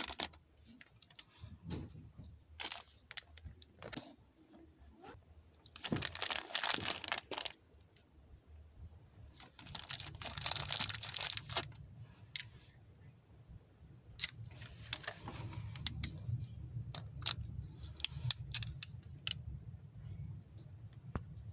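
Beyblade packaging being handled and opened: three crinkling, rustling bursts, with many small clicks and rattles of hard plastic parts between them.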